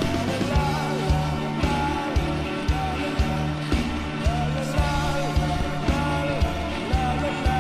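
Background music: a rock-pop song with singing over a steady beat of about two beats a second.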